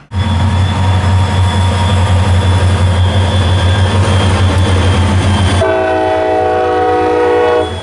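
CSX diesel locomotive passing close, its engine giving a heavy, loud rumble with rail noise. About two-thirds of the way through, its multi-note air horn sounds a steady chord, held until just before the end.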